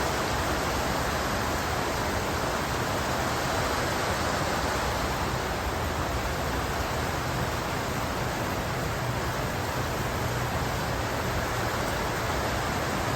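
Heavy squall rain pouring down, a steady, dense hiss with no thunderclap.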